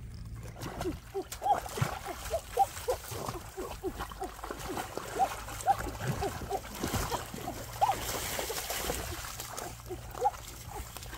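Hands splashing and churning shallow stream water, with a quick irregular run of short gurgling plops and splashes.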